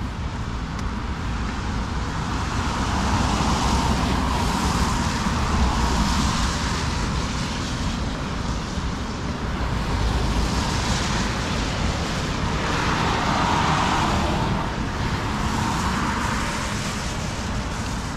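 Road traffic passing close by: several cars go by one after another, each a swell of tyre and engine noise that rises and fades, over a steady traffic hum.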